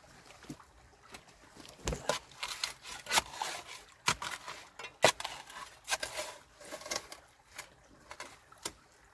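Irregular knocks and scrapes, with sharp ones about two, three, four and five seconds in.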